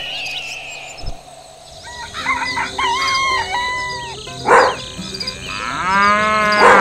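Farm animal sound effects over light background music: a rooster crowing, a short loud burst a little after the middle, then a cow mooing once near the end.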